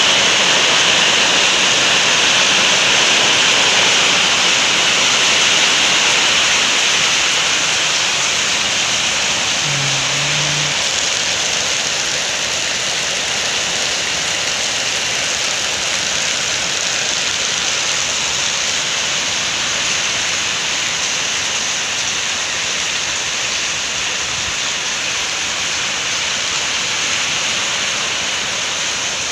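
Heavy rain falling steadily, a loud even hiss with no change in strength.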